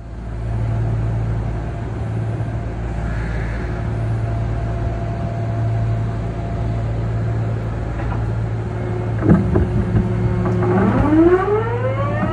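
Kintetsu Mo 1421's early Mitsubishi GTO-thyristor VVVF inverter drive: a steady low hum while standing, a few clicks about nine seconds in, then near the end the inverter whine starts, several tones rising together in pitch as the train begins to pull away.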